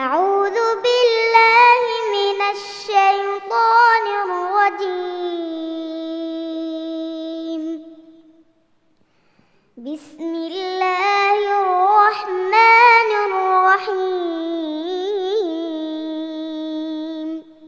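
A young girl reciting the Quran in Arabic in a melodic, drawn-out style. There are two long phrases, each ending on a long held note, with a pause of about two seconds between them.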